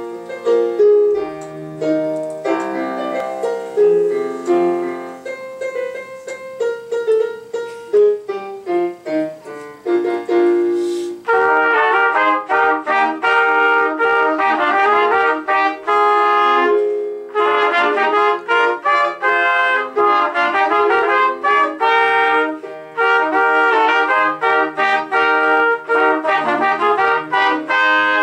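A piano plays an introduction of about eleven seconds, then three trumpets enter together in harmony over the piano, playing sustained phrases with short breaks between them.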